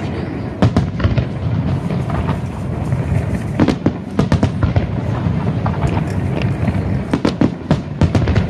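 Star mine fireworks barrage: many shells bursting in quick, irregular volleys of sharp bangs over a continuous low rumble of reports and crackle.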